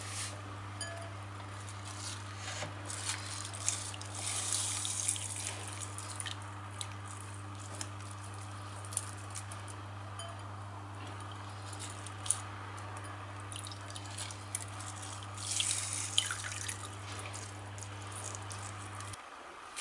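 Chopped onion, wet from its soaking water, being scooped out of a glass bowl and dropped into mashed avocado: short wet rustles and drips with a few light clicks. A steady low hum runs underneath and cuts off near the end.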